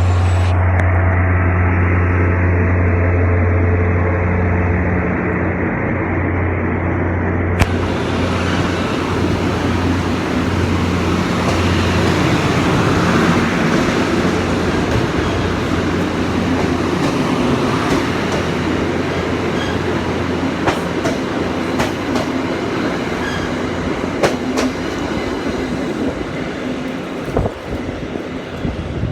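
A diesel commuter train pulling out of the station. A GP40MC locomotive's engine drones steadily at first and fades after about ten seconds, then the coaches roll past with a rumble and scattered clicks of wheels over rail joints.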